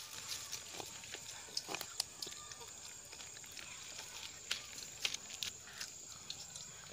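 Farm animal sounds: scattered short noises and clicks at irregular intervals.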